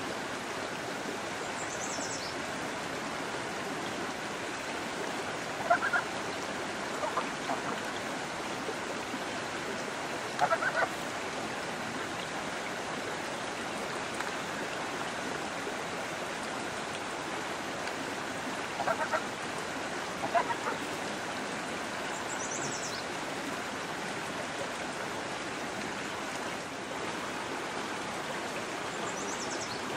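Steady rush of a creek, with five short calls from domestic waterfowl scattered through it, the loudest sounds. Three faint high falling chirps sound at the start, about two-thirds of the way in, and near the end.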